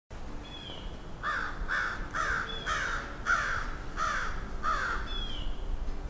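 A crow cawing in a series of about eight calls, roughly two a second. A faint high whistled call from another bird slides down in pitch three times.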